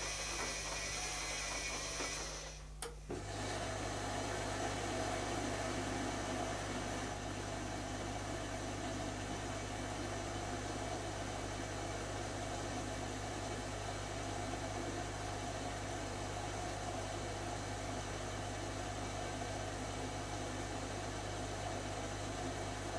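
Zanussi ZKN7120L washing machine running early in a wash cycle; about three seconds in it briefly drops away with a click, then a steady motor hum starts and carries on.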